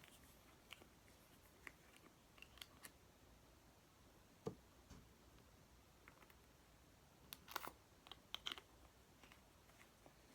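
Near silence broken by faint, scattered clicks and taps of small objects being handled, with a small cluster of them near the end, as one more glitter pot is added to the slime.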